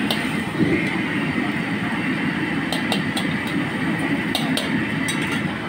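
Minced garlic deep-frying in a wok of hot oil, sizzling steadily over a constant low roar from the wok range, with a handful of sharp clicks in the second half.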